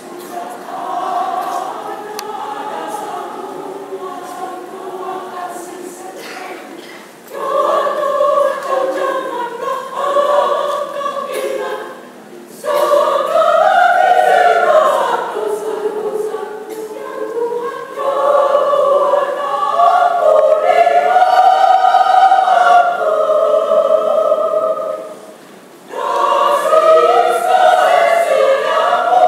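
Women's choir singing, soft at first and growing louder from about seven seconds in, with two short breaks between phrases.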